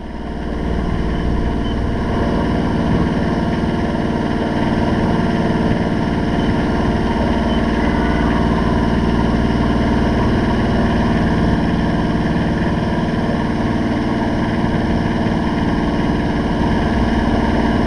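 Bristol 30 sailboat's auxiliary engine running at a steady speed as the boat motors along, a constant even drone.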